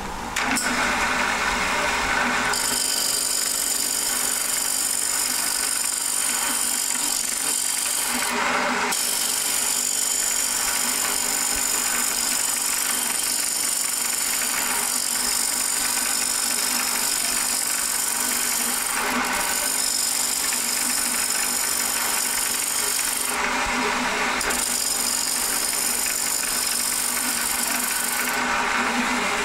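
Wood lathe spinning a glued-up stacked-bowl blank while a hand-held turning tool cuts across its face: a steady, hissing cut over the lathe's running, with a few brief breaks in the cut.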